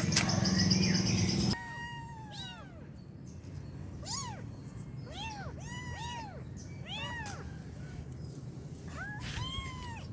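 A small kitten mewing over and over: about a dozen short, high, arching mews, some in quick pairs. A louder stretch of other sound cuts off about a second and a half in.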